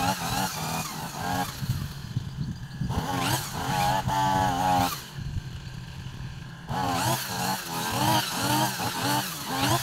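Backpack brush cutter engine running as it cuts grass, its revs rising and falling. The revs drop back twice, about two and five seconds in, then pick up again.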